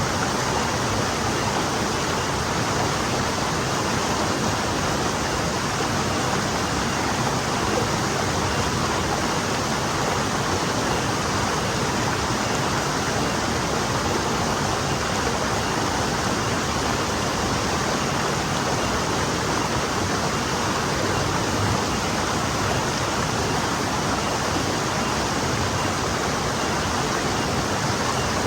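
Forest stream flowing over stones, a steady, even rush of water.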